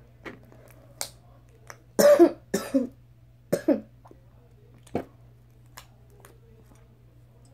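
A girl coughing: a run of short harsh coughs about two to four seconds in, then one more about five seconds in, with a few faint soft clicks between them.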